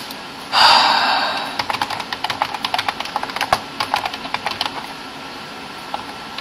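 Typing on a computer keyboard: a quick run of key clicks that thins to a few taps near the end. About half a second in, a loud breathy rush of air, like a sigh into the microphone, is the loudest sound.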